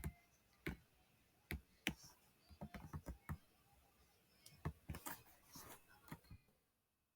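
Faint, irregular clicks and taps, some single and some in quick clusters of three or four.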